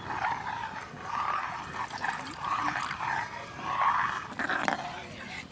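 Water poured into a small steel bowl of lemon juice, to dilute the juice one-to-one with water.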